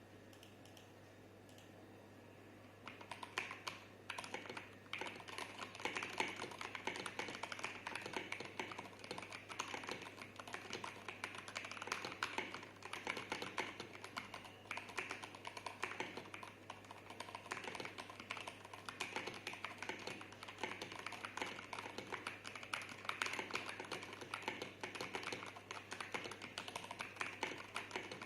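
Continuous typing on a mechanical keyboard built from an unmodified MK870 kit with stock Gateron Brown tactile switches and tall ABS SA-profile keycaps: a dense, uneven run of key clicks and clacks that begins about three seconds in.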